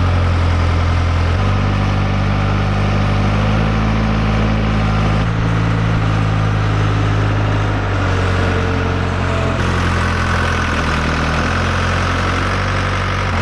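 Engine of a Lull 6K-42 telehandler forklift running as the machine drives over rough, rocky hillside ground. The engine note steps up about a second and a half in, then shifts in pitch a few more times.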